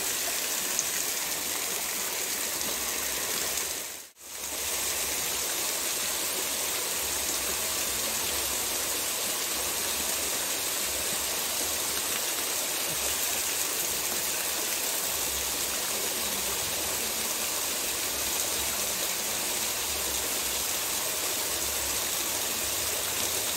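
Water spilling steadily over a small concrete weir and cascading into a shallow stream pool, an even rushing that briefly cuts out about four seconds in.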